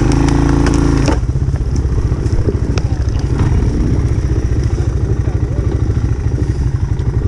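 Motorcycle-type engine running with a steady low, pulsing rumble, louder for about the first second.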